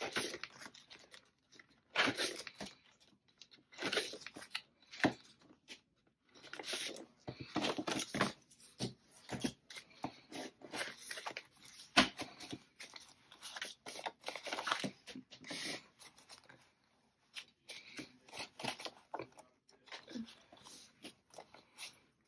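Cash envelopes and bills being pulled out of a budget binder: paper rustling and handling in irregular bursts, with one sharp click about halfway through, the loudest moment.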